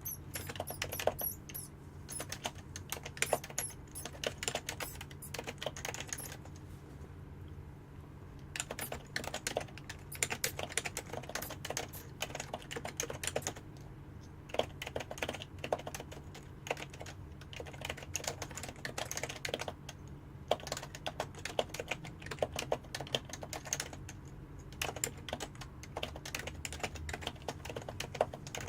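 Fast typing on a Happy Hacking Keyboard (HHKB) with Topre electrostatic capacitive switches: dense runs of key strokes with a few short pauses between them.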